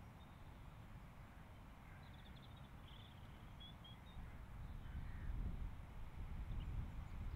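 Outdoor field ambience: a low wind rumble on the microphone that grows stronger about halfway through, with faint distant bird calls about two seconds in.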